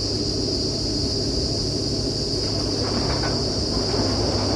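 Truck-mounted borewell drilling rig running: a steady, loud engine and compressor drone with a deep hum, and a constant high hiss above it.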